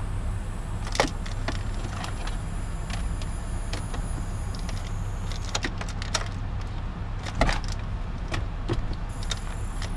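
A few sharp clicks and knocks over a steady low hum, with no engine cranking or running: a no-start, the starter not turning the engine over, which the tuner suspects is a dead starter.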